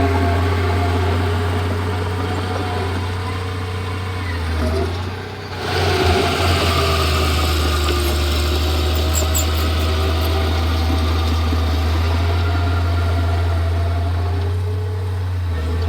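Komatsu D31P bulldozer's diesel engine running steadily, dropping briefly about five seconds in and then coming back up to the same steady pitch.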